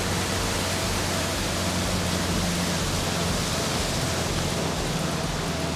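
Boat under way at speed: a steady rush of wind and water over the low, even hum of its Suzuki outboard motor.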